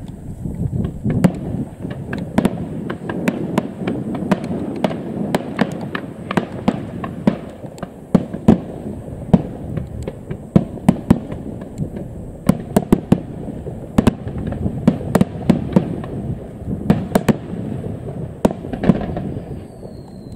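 Aerial firework shells bursting one after another: sharp bangs at irregular intervals, several in quick succession at times, over a continuous low rumble of reports.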